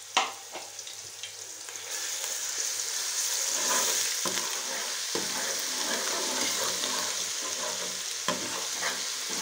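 Ginger-garlic paste sizzling in hot oil in a pressure cooker, the sizzle growing louder about two seconds in. A steel ladle stirs it, knocking against the pot a few times.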